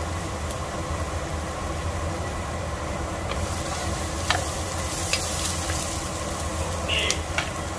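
Chopped garlic and onion sizzling in oil in a nonstick pot while a wooden spatula stirs them, scraping and knocking against the pot a few times.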